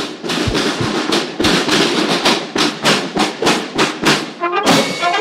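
Music with a fast, steady percussive beat, about four hits a second.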